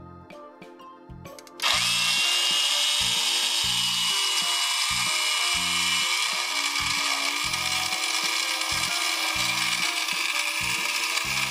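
Toy electric coffee maker switched on about two seconds in, its small battery pump running with a steady motor noise that carries a high whine for the first few seconds. Background music plays throughout.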